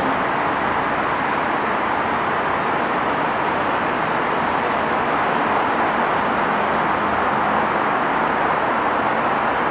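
Steady road noise of a car driving: an even rushing hiss that does not change.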